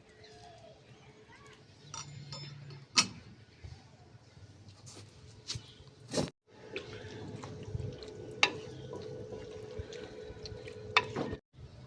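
Kitchen handling sounds: a few sharp clicks and knocks, the loudest about three seconds in, again near eight and a half seconds and near eleven seconds, over a faint steady hum. The sound cuts out briefly twice.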